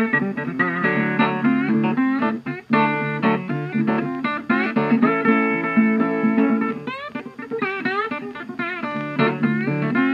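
Background music: a plucked guitar tune with wavering, bending notes.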